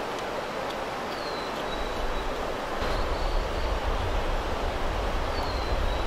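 Steady outdoor rush of water and wind, with a low wind rumble on the microphone building up about halfway through. A faint high whistle slides down twice, once about a second in and again near the end.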